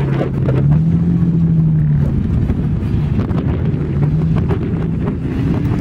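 Toyota FJ Cruiser's V6 engine revving as the SUV drives off through loose sand. Its pitch rises about a second in, drops away after two seconds, and climbs again near the end, over steady wind and rumble on the microphone.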